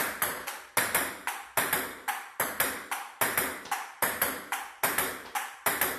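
Table tennis ball struck with a paddle against the folded-up half of a table tennis table, clicking off the paddle, the tabletop and the upright half in a steady rally. A loud click comes about every 0.8 s, with lighter clicks between.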